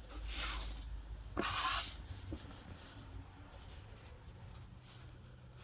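Soft rubbing and handling noises of hands on the squishy toy, with one brief louder rub about a second and a half in.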